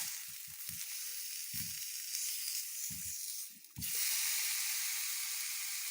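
Chicken thigh sizzling on a preheated Range Mate microwave grill pan, a steady hiss, with several soft low knocks as it is handled. The sizzle drops out briefly about three and a half seconds in, then comes back a little louder.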